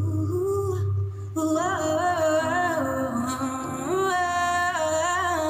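A woman singing long wordless notes that glide and bend in pitch, with a short break about a second in, over a steady low backing sound.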